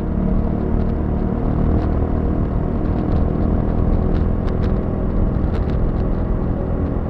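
Motorcycle engine running steadily on the road, a low, even rumble with a few faint clicks.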